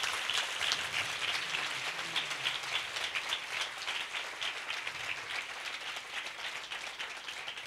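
A large congregation applauding, many hands clapping at once, dying away slowly toward the end.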